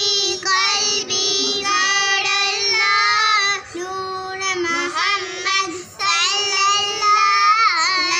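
Two young girls singing together in long held notes, with short breaks for breath about four and six seconds in.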